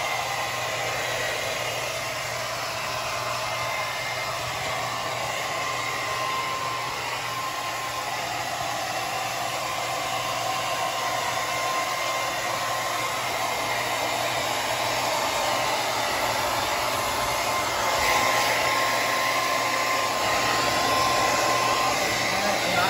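Blow dryer running steadily on a dog's thick coat, a constant rush of air with a thin steady whine. It gets a little louder about three-quarters of the way through.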